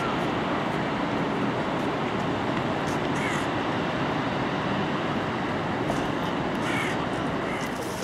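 Steady rushing of the Rhine Falls and the fast-flowing Rhine, with a crow cawing a few times over it.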